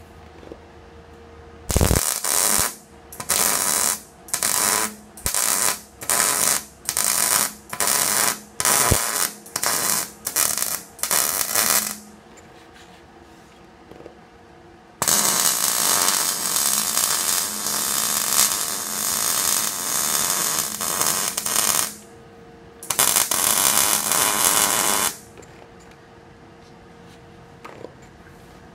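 MIG welder arc crackling on steel: about a dozen short stitch welds roughly a second apart, then a continuous bead of about seven seconds and a last one of about two seconds. A faint steady hum sits under the gaps between welds.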